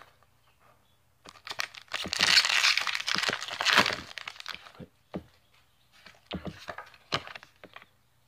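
Foil Pokémon booster pack wrapper being torn open about a second in, a dense crinkling tear that is loudest over the next few seconds, followed by scattered short crinkles and clicks as the wrapper and cards are handled.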